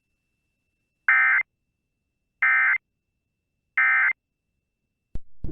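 NOAA Weather Radio SAME end-of-message signal: three short bursts of warbling digital data tones, about a second apart, marking the end of the warning broadcast. A short click and a brief sound follow near the end.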